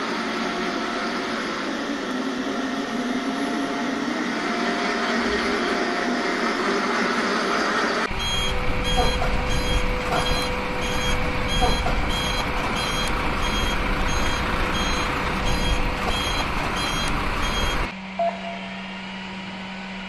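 Truck reversing alarm beeping at a steady even rate over a low engine rumble, starting about eight seconds in and cutting off suddenly about ten seconds later.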